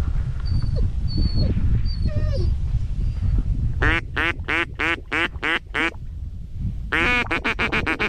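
Duck quacking in two runs: about seven evenly spaced quacks starting about four seconds in, then a faster run of quacks near the end. A steady low rumble of wind on the microphone runs underneath.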